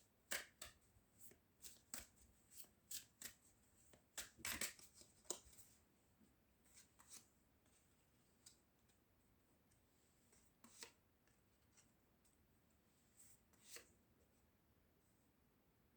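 Tarot cards being shuffled by hand: a quick run of crisp snaps and riffles over the first six seconds, then only a few scattered light clicks.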